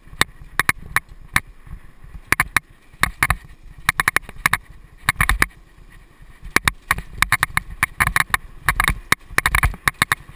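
Mountain bike riding fast along a dirt singletrack: a low rumble of tyres and wind on the microphone, with many sharp clicks and rattles in irregular clusters as the bike jolts over bumps, thickest in the last couple of seconds.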